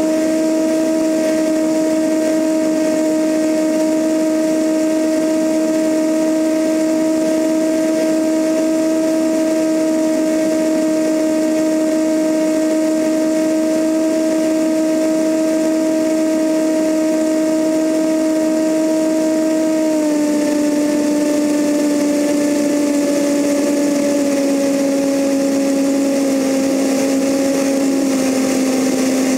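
Cessna 172N's four-cylinder Lycoming engine and propeller running in flight, heard from outside the fuselage with wind rushing past the microphone: a steady drone with a strong hum. About two-thirds of the way through, the engine note drops in pitch, then steps down twice more near the end as the rpm comes back.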